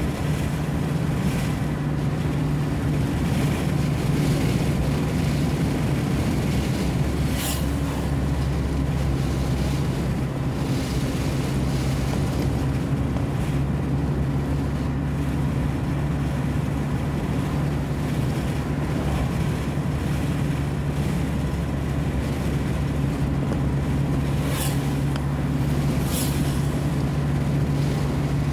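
A vehicle's engine droning steadily with road noise while driving at an even speed, with a few brief high hisses, about seven seconds in and twice near the end.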